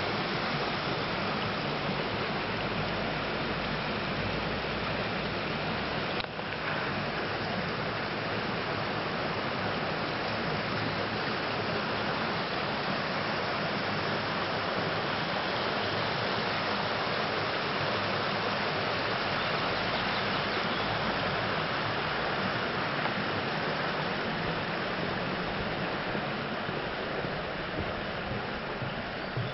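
Mountain stream rushing steadily, an even hiss of running water that eases slightly near the end.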